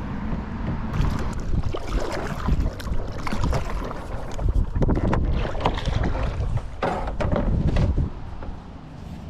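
Sounds of moving about in a canoe on the water: knocks and clicks against the hull and water sounds, over a heavy wind rumble on the microphone that eases near the end.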